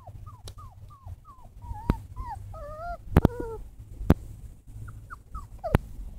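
American Pit Bull Terrier puppies whimpering: a quick run of short, high squeaks that fall in pitch, several a second, then a few longer wavering cries near the middle. Several sharp clicks are also heard.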